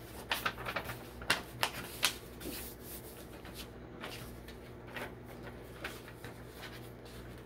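A sheet of paper being folded and creased by hand: crisp rustles and crackles, several sharp ones in the first two seconds, then quieter handling.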